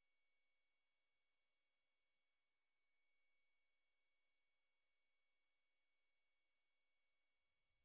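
Near silence with a faint, steady high-pitched tone that holds level throughout.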